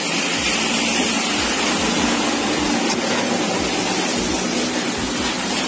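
Car engines running at a roadside jump start, under a loud, steady rush of passing highway traffic with a low hum beneath it.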